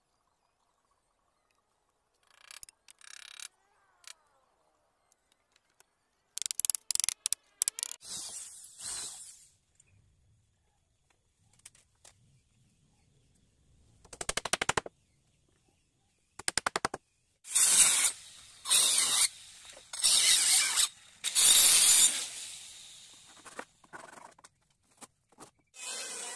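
Irregular bursts of rasping strokes from a hand tool worked over teak wood, some in quick runs of clicks, with gaps of near silence between them. Near the end an electric hand planer switches on and runs steadily.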